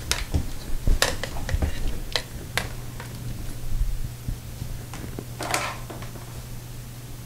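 A few sharp clicks and knocks in the first three seconds, with a short rustle about five and a half seconds in, over a steady low hum. These are handling sounds from moving into the cabinet under the sink.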